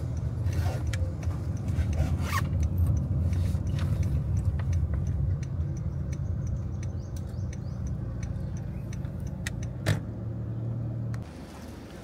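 A motor vehicle's engine running steadily at idle, with scattered clicks and scrapes over it. The engine hum cuts off abruptly about eleven seconds in.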